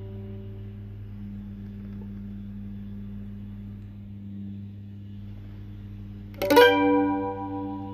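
Mandolin: a note dies away, then after a long pause a chord is strummed with a few quick strokes about six and a half seconds in and rings out. A steady low hum runs underneath.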